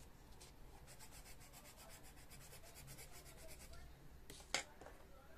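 Coloured pencil scratching on a colouring-book page: faint, rapid back-and-forth strokes, several a second, that stop a little before four seconds in. About four and a half seconds in comes a single sharp tap.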